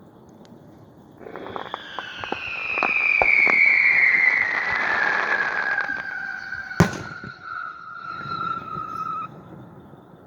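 Whistling fireworks (screamers): a long whistle slowly falling in pitch, with crackling pops as it begins. One sharp firework bang comes about seven seconds in.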